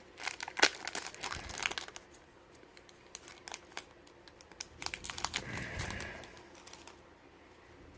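Plastic wrapper of a Topps Chrome baseball card pack crinkling and tearing open, with a dense run of crackles in the first two seconds. Sparser rustles and clicks follow as the pack and cards are handled.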